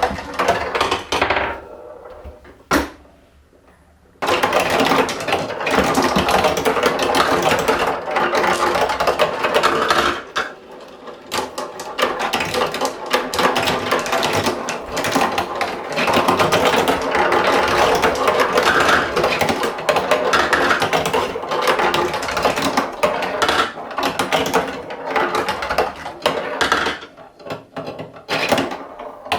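Plastic marble run in motion: marbles clattering and clicking along the track and its toy parts in a dense, continuous rattle. It stops briefly about two seconds in, then picks up again and thins out near the end.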